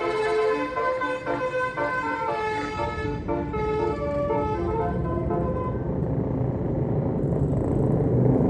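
Tour bus basuri (telolet) musical horn playing a stepping multi-note melody that fades out about four seconds in, then the low rumble of a bus engine growing louder toward the end.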